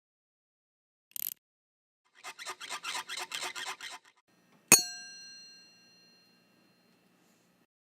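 A quick run of short rasping, rubbing strokes, then one sharp metallic strike that rings out with several clear tones, fading over about a second and a half.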